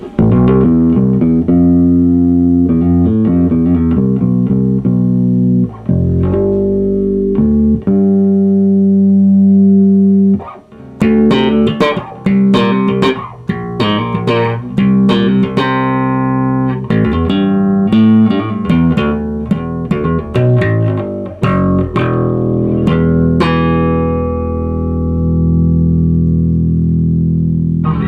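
1979 Fender Precision Bass electric bass guitar played with plucked notes: a run of changing notes, a long held note about eight seconds in, brighter, busier playing after a short break, and a long ringing note near the end.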